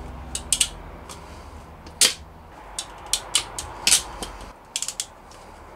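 Hand tools and cable lugs being worked on heavy battery cable: about a dozen irregular sharp clicks and snaps, the loudest about two seconds and four seconds in. Underneath is a low steady hum that stops about four and a half seconds in.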